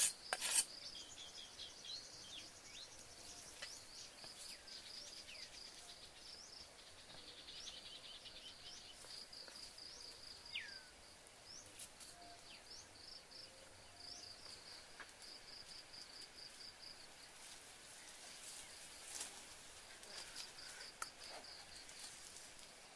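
Insects chirping in fast pulsed trains, high-pitched and continuous, with a few bird calls, one a clear falling whistle about ten seconds in. A few sharp knocks sound right at the start, with faint clicks and rustles here and there.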